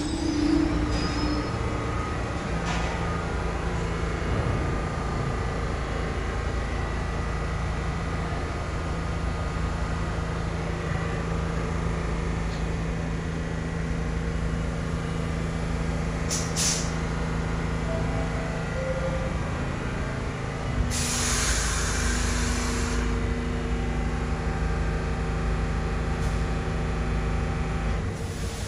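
New York City subway trains in an underground station: a steady low rumble and hum of running gear and motors, with a few held tones. A burst of air hissing about two-thirds of the way through lasts about two seconds, with shorter hisses earlier and at the very end.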